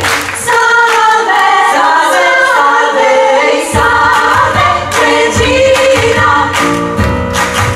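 A chorus of women singing a musical-theatre number with a lead singer over backing music. The bass and drums drop out for a few seconds and come back in strongly about four seconds in.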